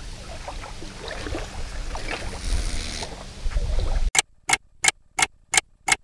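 Small waves lapping at the shoreline with wind rumbling on the microphone, then, after a sudden cut about four seconds in, a clock-ticking sound effect: six sharp ticks, about three a second.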